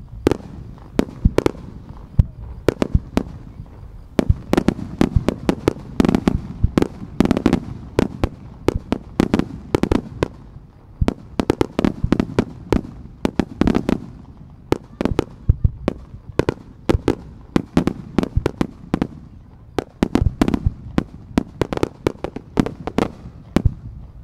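Fireworks display: aerial shells launching and bursting in quick succession, a dense run of sharp bangs several times a second over a low rumble.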